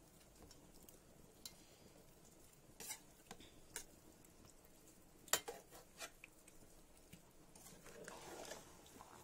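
Metal spatula clinking against the side of a metal cooking pot while a thick fish and potato curry is stirred: a few scattered knocks, the loudest about five seconds in, then a short scraping stir through the sauce near the end.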